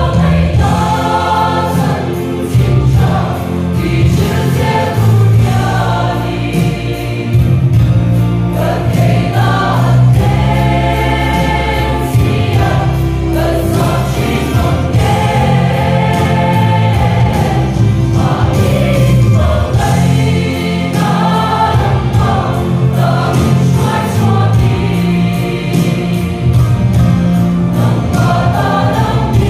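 Mixed church choir of men and women singing.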